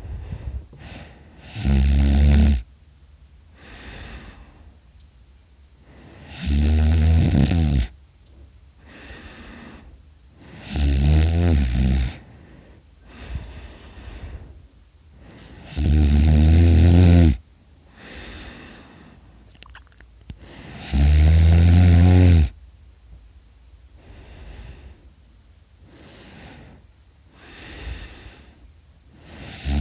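A person snoring very loudly in deep sleep. Five loud snores come about every five seconds, each lasting about a second, with a softer breath between each pair.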